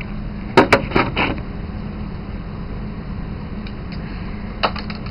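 Handling noise as the camera is moved into place: a cluster of sharp knocks and bumps, then a few more near the end, over a steady low hum.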